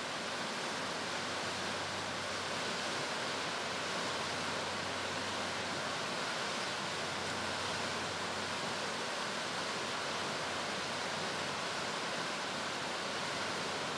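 Steady, even rushing noise of a flowing river, with a faint low hum beneath it.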